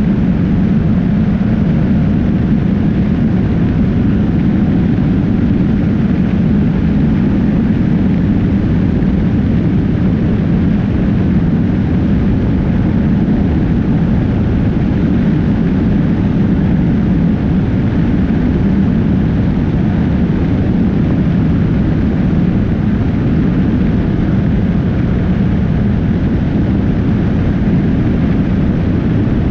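Motorcycle at speed on a highway, heard from a camera mounted low on the bike: a steady, loud rush of wind and road noise.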